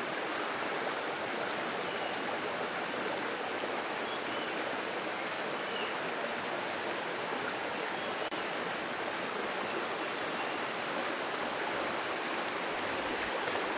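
Running water of a stream, a steady, even rush with no change.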